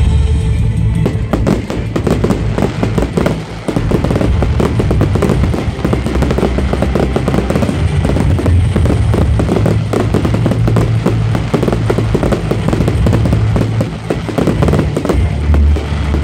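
Aerial fireworks crackling and bursting in a rapid, dense stream of pops, over music with a steady heavy bass.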